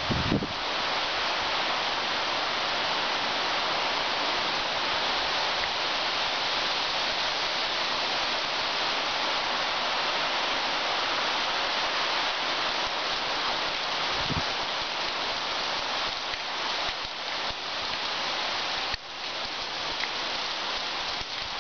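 Heavy rain falling steadily on trees and foliage, a dense, even hiss that briefly drops and comes back slightly lighter near the end.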